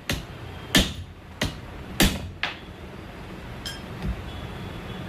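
An angle grinder bearing being tapped into place with a hammer: five sharp metal strikes in about two and a half seconds, each with a brief ring. A light click and a dull knock follow later.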